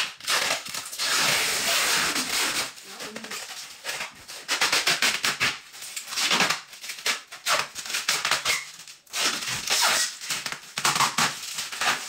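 Protective plastic film being peeled off a refrigerator door and crumpled in the hands: loud crinkling and crackling of plastic, with tearing as it comes away.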